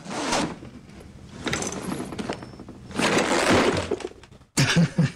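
Banknotes being counted close to the microphone: rapid rattling riffles of paper bills in three goes, the longest and loudest about three seconds in.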